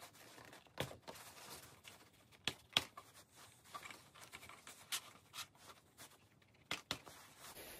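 Brass rod being pushed by hand through the hinge holes of an RC plane elevator: a handful of faint sharp clicks with light scraping in between.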